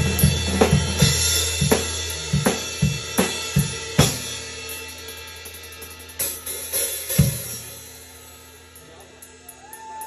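Acoustic drum kit played solo: fast strokes across snare, toms, bass drum and cymbals, with a low hum underneath, then thinning out about four seconds in to scattered hits and cymbal strikes that ring down toward the end.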